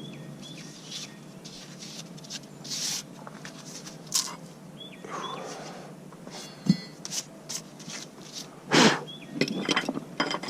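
Metal clicks and knocks of a mower blade and hand tools being handled, with the loudest clank about two seconds before the end. A few short high chirps come in between.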